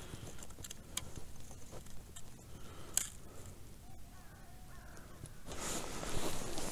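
Faint bird calls in the background, with a few light clicks. Rustling starts about five and a half seconds in.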